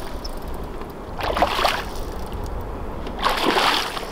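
Hooked bighead carp thrashing at the water's surface beside the boat, splashing twice: about a second in and again just after three seconds.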